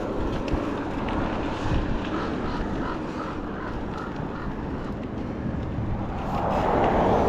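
Steady wind and road noise while a bicycle is ridden along a street, swelling near the end.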